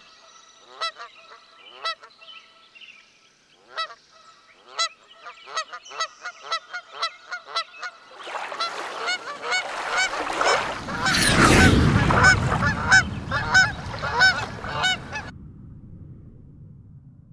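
A flock of geese honking: scattered single honks at first, then many calls overlapping from about eight seconds in, over a low rushing noise that carries on for a couple of seconds after the honking stops near the end.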